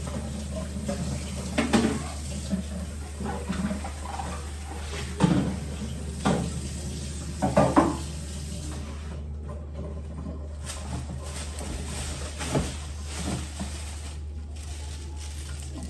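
Water running from a kitchen tap into a sink while things are washed, with scattered knocks and clatters of items against the sink, loudest a few times in the middle.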